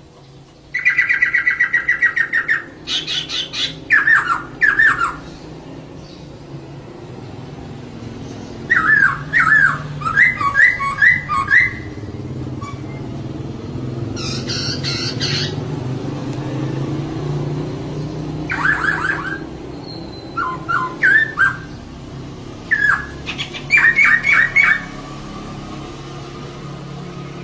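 Female poksay (laughingthrush) calling in about six separate bursts of quick, repeated chattering notes with pauses between, the first a fast rattle about a second in. A steady low hum runs underneath.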